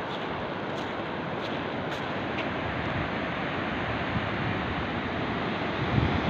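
Sea surf breaking and washing up a sandy beach: a steady rush of waves. A few low thumps on the microphone come near the end.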